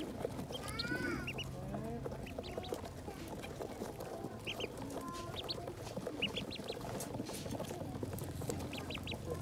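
A brood of ducklings peeping, with many short high cheeps scattered throughout and a longer curving call about a second in.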